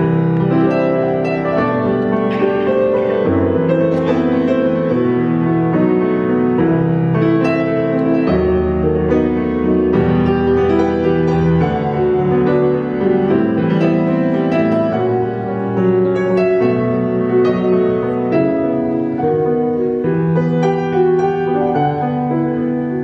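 Solo grand piano playing an improvisation: a continuous flow of sustained chords and melody, with a deep bass note entering about eight seconds in.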